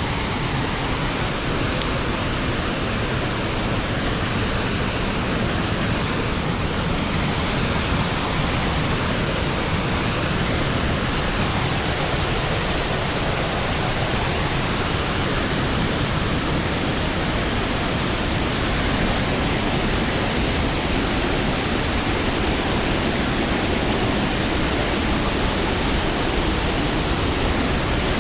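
Large waterfall: a steady, loud rush of falling water.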